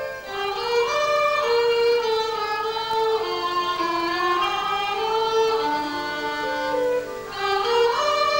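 Folk dance music with a fiddle carrying the melody, which slides up in pitch about a second in and again near the end.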